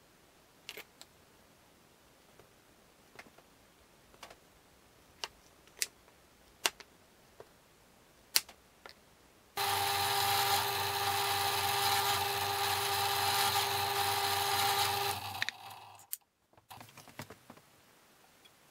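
Light, scattered clicks and taps, then a small power tool starts suddenly and runs steadily with a whine for about five and a half seconds before winding down, followed by a few more clicks.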